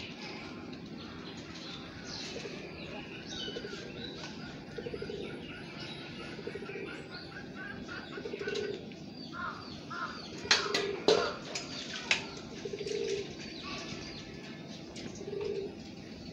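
Domestic pigeons cooing at intervals in short pulsed phrases. A few sharp claps come about ten to twelve seconds in and are the loudest sounds. Small birds chirp higher up, mostly in the first few seconds.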